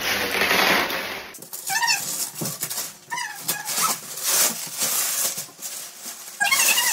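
Bubble wrap rustling and crinkling as it is pulled off a large canvas, with a few short high squeaks in between.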